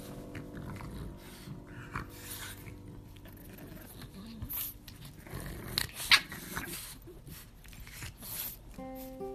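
A French bulldog puppy and an adult French bulldog playing close to the microphone: irregular dog breathing and grunting noises with rustling on fleece bedding and a sharp click about six seconds in. Strummed guitar music comes in near the end.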